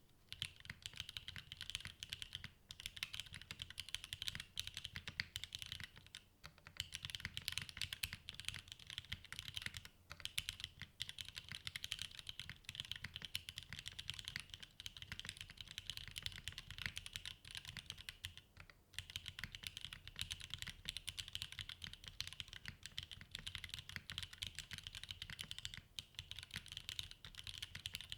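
Fast, continuous typing on a Goen Works Frog mini custom mechanical keyboard with TTC Wild switches, an aluminium plate and GMK keycaps: dense rapid keystroke clicks, broken by a few short pauses.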